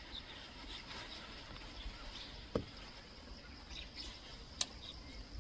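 Forest ambience: a steady high drone of insects such as crickets, with scattered short bird chirps. Two sharp clicks, about two and a half seconds in and again near the end, are the loudest sounds.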